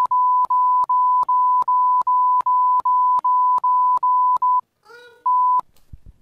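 Censor bleep: a steady, loud, high-pitched beep tone laid over a long run of swearing, with small clicks about two and a half times a second where the bleep pieces join. It breaks off briefly just before five seconds for a snatch of voice, then one short bleep more.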